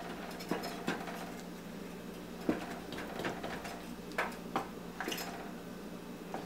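Wooden spoon stirring thick palm nut soup with meat in a stainless steel pot, giving light knocks and clicks against the pot every second or so, over a faint steady hum.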